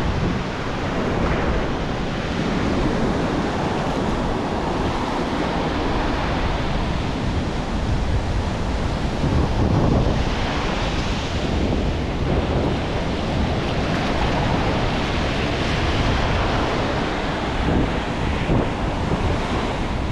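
Ocean surf breaking and washing up the sand, with wind buffeting the microphone; the hiss of the wash swells about halfway through.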